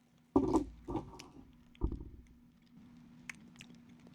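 Handling noise close to the microphone: three dull knocks with a rustle in the first two seconds, then faint scattered small clicks, as a cough drop is handled and put in the mouth.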